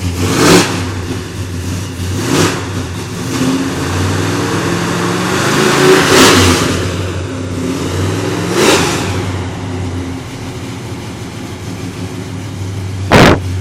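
1968 Dodge Charger engine running loud, with four quick blips of the throttle between stretches of idle; the third rev, about six seconds in, is the biggest and longest. A sharp bang comes near the end.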